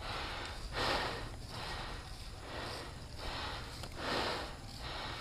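Person breathing heavily close to the microphone: slow, noisy breaths, the loudest about a second in and again about four seconds in.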